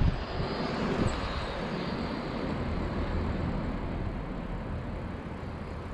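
Wind rushing over the microphone and road noise of a bicycle riding along, with light traffic nearby; a louder swell and a knock come in the first second.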